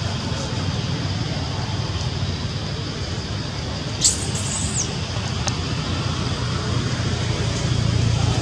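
Steady outdoor background rumble like distant traffic, with one short high-pitched squeak about four seconds in.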